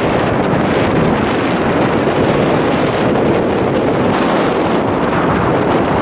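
Wind blowing across the microphone: a loud, steady rushing noise with no breaks.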